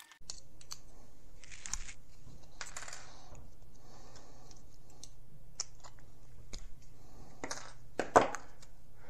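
Small clicks and clinks of printed plastic stair steps and thin steel axle rods being worked apart with pliers and set down on a wooden table, over a steady low hum.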